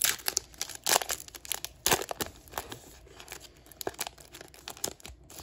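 Foil trading-card booster pack wrapper being torn open and crinkled by hand: a run of sharp crackles, loudest in the first two seconds, then lighter.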